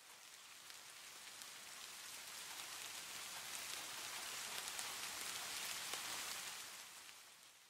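Faint sound of falling rain with scattered drop ticks, slowly swelling and then fading out near the end.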